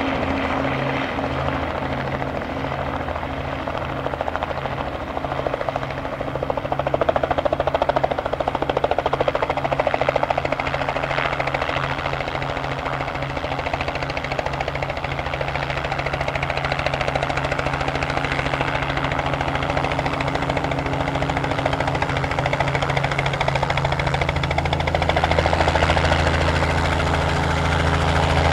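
Robinson R44 helicopter hovering low: the beat of its two-blade main rotor over the steady drone of its six-cylinder piston engine. It swells about seven seconds in and again near the end, with a deeper hum in the last few seconds.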